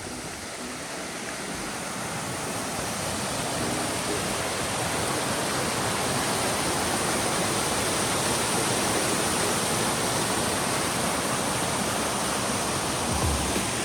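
Steady rush of flowing water, swelling over the first few seconds and then holding steady.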